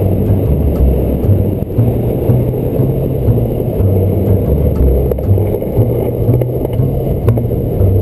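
Loud wind buffeting the microphone, mixed with the rumble of longboard wheels rolling on asphalt at downhill speed.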